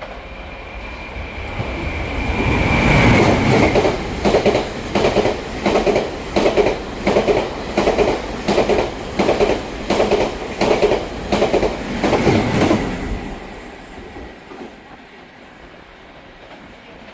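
A Taiwan Railway E1000 push-pull Tze-Chiang express passing through at speed. The rumble builds to a peak about three seconds in, then a steady run of loud clacks comes nearly twice a second as the wheels strike a rail joint's fishplates, fading away near the end.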